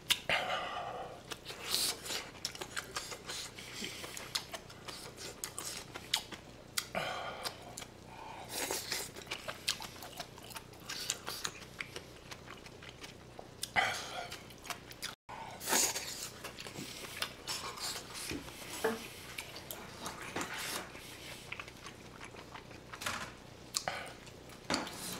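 A person chewing and smacking on mouthfuls of beef bulgogi and fried kimchi, close to the microphone, with frequent short wet clicks and crackles.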